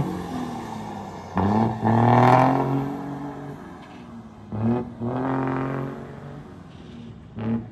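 Diesel truck engine with a modified exhaust accelerating away through the gears: three surges of throttle, each rising slightly in pitch and then dropping off at a shift, the sound growing fainter as the truck moves off.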